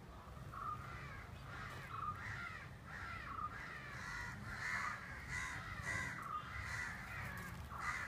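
Crows cawing repeatedly, a steady run of short harsh calls about one or two a second.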